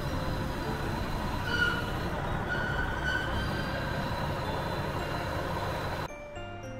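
Diesel railcar standing at a station platform with its engine idling: a steady low rumble with station noise, and a few brief high-pitched squeals in the middle. Near the end it drops suddenly to a much quieter background of faint tones.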